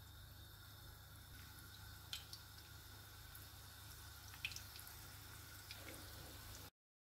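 Battered onion slices frying in hot vegetable oil: a faint frying noise with a few sharp pops and crackles from the oil. The sound cuts off suddenly near the end.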